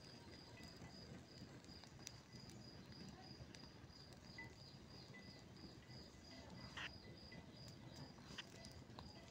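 Near silence with faint, steady insect chirping, a high pulse repeating about three times a second, and a few faint crackles and pops from a burning rubbish pile, one a little louder about two-thirds through.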